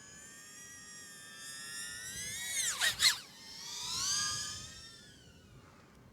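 Small cinewhoop FPV drone (BetaFPV Pavo20 Pro II) with its brushless motors and ducted props whining, the pitch rising and falling with throttle. The throttle drops sharply and punches back up just before the middle, then surges again a second later.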